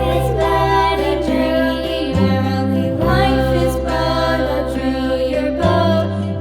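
Background music with singing and a steady bass line.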